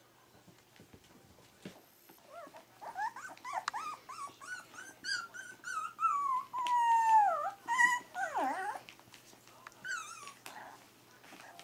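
Three-week-old Pyrenean Shepherd puppy whining: a run of short high cries that rise and fall in pitch, with one longer cry sliding downward about six seconds in, then a few more short cries.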